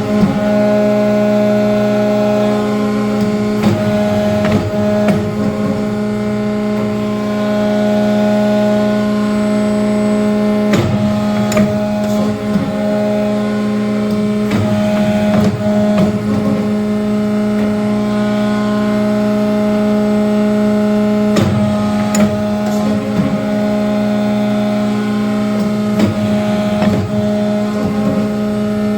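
Hydraulic power unit of a Horn #2 CNC tube bender running with a steady hum. Clicks and clunks from the machine's moving parts come every few seconds, with clusters about 3 to 5 s in, around 11 to 12 s, 15 s, 21 to 23 s and 26 to 27 s.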